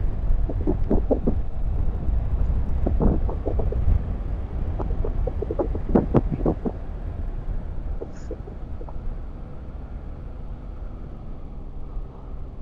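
Wind rumbling over the microphone of a moving motorcycle, with engine noise underneath. There are short louder spikes during the first six or seven seconds, then the sound eases to a quieter, steadier rumble.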